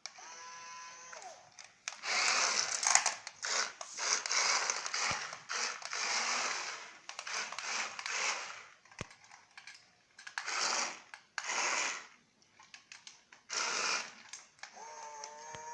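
Toy construction vehicles being played with: plastic parts clicking and rattling in short ratchety bursts of about a second, with short pauses between.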